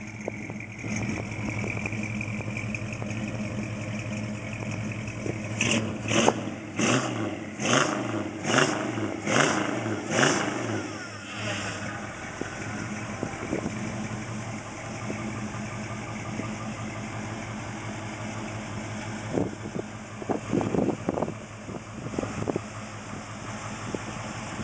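Freshly rebuilt 440 cubic-inch V8 of a 1969 Plymouth Road Runner, bored .040 over with a Mopar cam and 906 heads and not yet broken in, idling on its first start-up. About five seconds in, it is blipped about eight times in quick succession, then it settles back to a steady idle. A few lighter blips come near the end.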